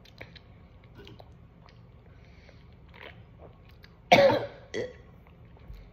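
A person coughs twice, a loud cough about four seconds in and a shorter one just after it, with faint small clicks before.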